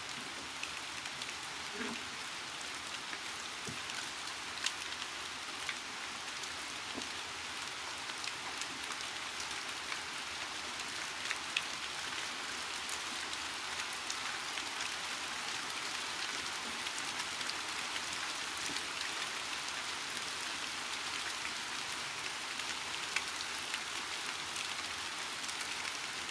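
Steady rain falling, with scattered light ticks of drops.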